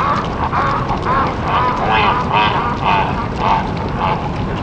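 Bird calls played back slowed down: a quick series of short, arching calls, about two or three a second, over a steady low noise.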